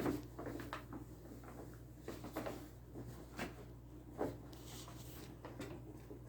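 Two cats wrestling and scuffling: scattered soft thumps, knocks and scrapes of paws and bodies, the firmest right at the start and a few more spaced through, with a brief rustle near the end.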